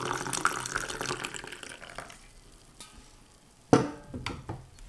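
Hot coffee pouring from a carafe into a ceramic mug, a splashing, bubbling stream that stops about two seconds in. Near the end comes one sharp knock, the steel carafe set down on the wooden table.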